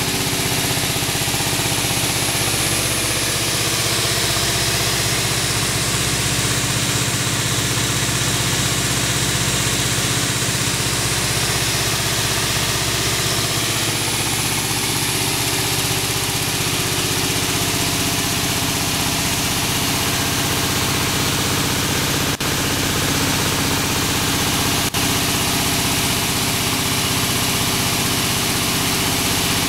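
Maize polisher running steadily under load, with maize kernels passing through it and pouring from the outlet chute; the machine's drive makes a constant engine-like drone.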